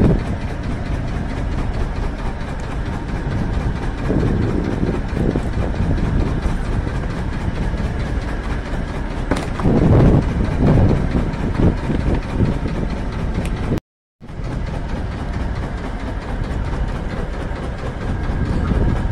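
Steady low engine rumble of a small fishing boat, with wind buffeting the microphone and a few louder gusts about halfway through. The sound cuts out completely for a moment about three-quarters of the way through.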